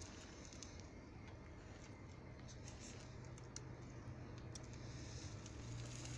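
Faint scattered clicks and crackles of a small electric bike's 12-inch tyres rolling slowly over gravel and grit, over a low steady hum.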